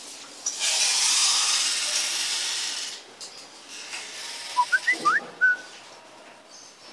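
A loud rushing hiss for about two and a half seconds, then a quick run of about five short, rising whistle-like chirps.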